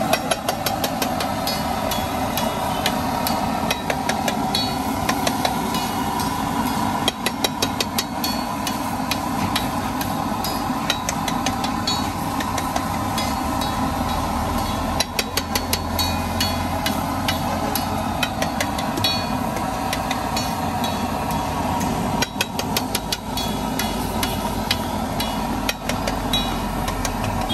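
Two metal spatulas clattering and scraping on a large flat iron griddle as a heap of chopped egg bhurji is chopped and turned, in quick runs of metallic taps that come and go. Under them runs a steady sizzle and hum.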